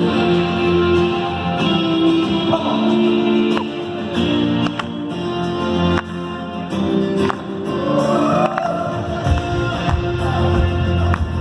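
Rock band playing live: held chords over guitar and bass, with regular drum hits.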